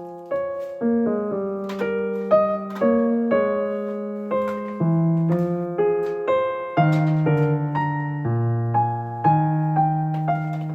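Background piano music: a gentle melody of single struck notes over held bass notes.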